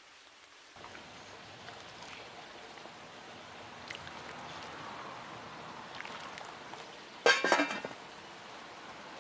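A pot of orzo soup bubbling on the fire, with a few light taps of a wooden spoon against the pot. About seven seconds in, a stainless steel pot lid clinks against the pot with a short metallic ring.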